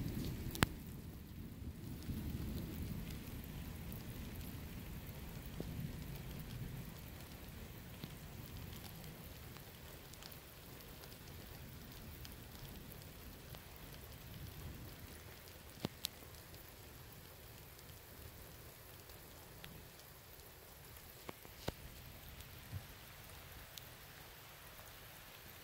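Low rumble of distant thunder, loudest at the start and dying away over the first several seconds, over steady rain. A few sharp ticks break in, the loudest about half a second in and a pair about 16 seconds in.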